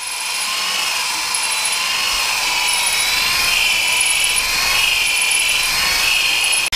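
An electric drill spins a stone cylinder hone in a cast-iron bore of a Farmall Super M engine block, honing the bore out to fit a new cylinder sleeve. It is a steady power-tool whine with the rasp of the stones on the bore, wavering slightly in pitch, with a brief drop-out near the end.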